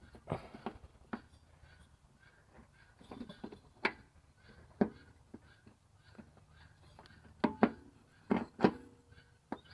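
Irregular knocks and clanks of hands and tools working on a riding mower's deck, belt and pulleys, about ten separate sharp hits with the loudest ones near the end.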